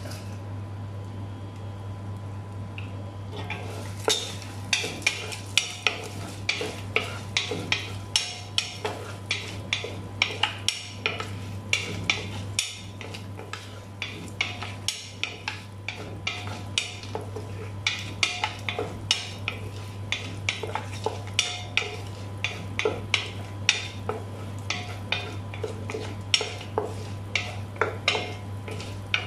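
Wooden spoon stirring in a nonstick pot, knocking and scraping against its sides and bottom about twice a second as onions and whole spices fry in butter; the stirring starts about four seconds in. A steady low hum runs underneath.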